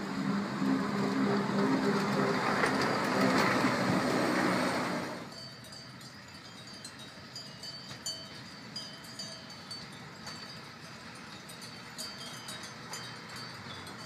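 Vintage electric motor car BCFe 4/4 No. 11 passing close by, its motors humming steadily over the rumble of wheels on the rail. The sound drops abruptly a little over five seconds in, to a quieter scene of scattered light tinkling from cowbells, with the train distant.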